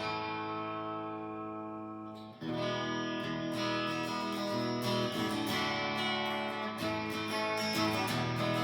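Fender Player Stratocaster electric guitar played on its bridge pickup: a chord rings and slowly fades, then strummed chords start again about two and a half seconds in and keep going.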